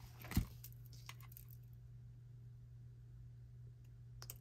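Small hard beads or stones being handled: one sharp knock about half a second in and a few light clicks, then a low steady hum with two faint clicks near the end.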